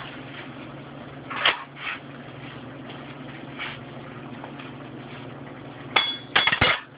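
Kitchenware clinking as things are moved around and set down on a marble work table: a few light clinks, then a quick cluster of sharp clinks near the end, one with a brief metallic ring, over a steady low hum.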